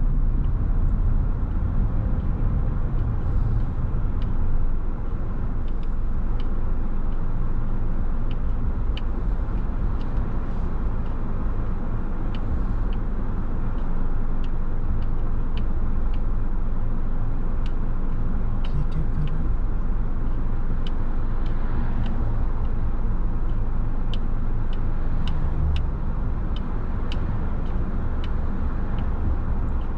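A car driving, heard from inside the cabin: a steady low rumble of tyres and engine, with faint scattered ticks.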